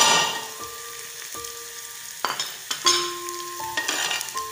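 Green bell pepper strips going into a hot oiled pan of shredded chicken and potatoes. The sizzle surges loudly as they land, then settles to a steady sizzle, with a few sharp knocks in the second half.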